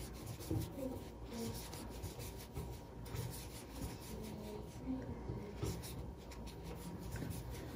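Faint scratching and rubbing of a crochet hook drawing acrylic yarn through stitches, with small irregular ticks as single crochet stitches are worked one after another.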